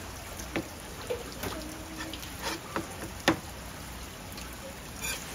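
Live squid being cleaned by hand: water trickling, with scattered wet clicks and knocks and one sharper knock about three seconds in.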